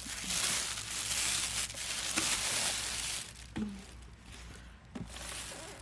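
Packaging being handled while a mini fridge is unwrapped: plastic and cardboard rustling and crinkling with small clicks, stopping about three seconds in, followed by a few faint knocks.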